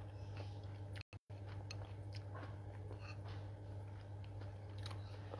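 A person chewing a mouthful of instant noodles with many small wet clicks, over a steady low hum. The sound drops out for an instant twice just after a second in.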